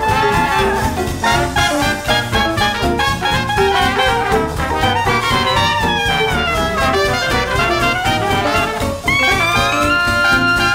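Jazz music with horns over a steady beat.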